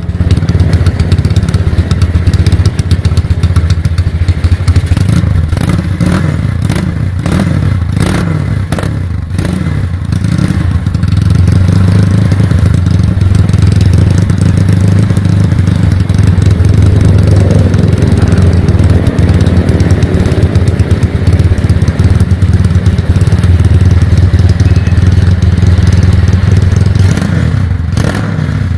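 Honda C50 with a swapped-in Honda Tiger 200 cc single-cylinder four-stroke engine running through an open 'pispot' exhaust, with a deep note said to sound like a twin-cylinder. It is blipped several times in quick succession early on, then held at a steadier, higher speed until near the end.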